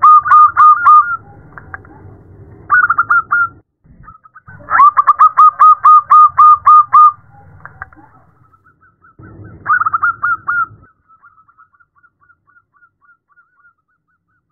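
Zebra dove calling in rapid runs of short, staccato cooing notes: several bursts, the longest about two seconds, with the last fading into a faint trailing series near the end. It is presented as a female calling a male.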